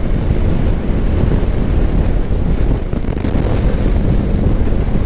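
Loud, steady wind noise buffeting the microphone of a Bajaj Dominar 400 motorcycle riding fast on the highway, with the bike's engine and road noise underneath.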